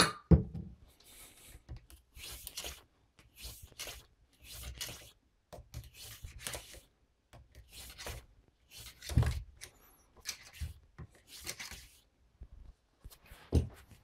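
Oiled cloth patch on a cleaning rod being scrubbed through a revolver's cylinder chambers and the metal wiped with a cloth: scratchy rubbing strokes about once a second, with a few dull knocks about nine seconds in and near the end.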